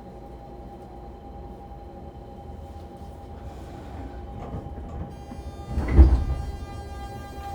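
Fukuoka City Subway 2000 series train with a Hitachi GTO-VVVF inverter pulling away: a steady hum, then about five seconds in the inverter starts up with a whine of many stacked steady tones. A heavy clunk follows a second later and is the loudest sound.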